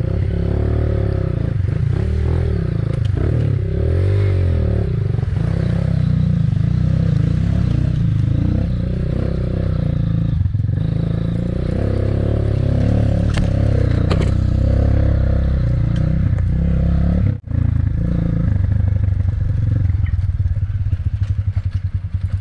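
Motorcycle engine running while riding, its pitch rising and falling with the throttle, with a momentary break about seventeen seconds in.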